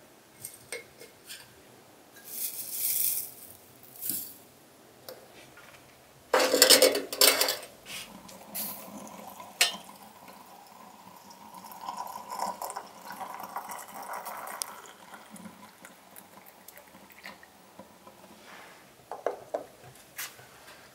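Clinks and knocks of a glass teapot and crockery being handled, the loudest cluster about six seconds in, then hot water poured over dried herbs in the glass teapot for several seconds as herbal tea is brewed.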